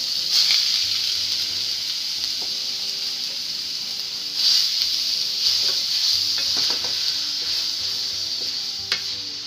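Minced beef frying in hot oil in a stainless steel pot: a steady loud sizzle while it is stirred with a wooden spatula, with a few short scrapes of the spatula against the pan.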